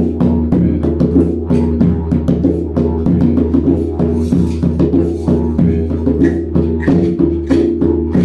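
Didgeridoo playing a steady low drone with a pulsing rhythm, over a steady beat of drum and percussion hits.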